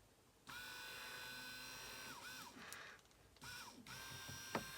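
Small 12-volt DC electric motor running off a battery with a faint, steady high whine; it starts about half a second in, cuts out near the middle and starts up again as the hand-held cable contact makes and breaks. A sharp click near the end.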